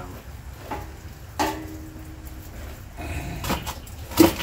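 Metal clanks from handling a cast-iron camp Dutch oven, its lid and coals while coals are added underneath and on top. One knock rings briefly like struck metal, and a sharper clank comes near the end.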